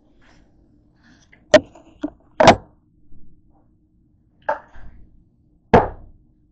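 About five sharp knocks and clunks of objects being handled and set down on a tabletop. The last, near the end, is a plastic pill bottle being put down.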